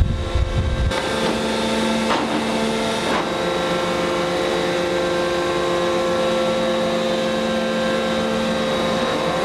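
Radial forging machine running with a steady, droning hum that holds several fixed tones. A low rumble gives way to it about a second in.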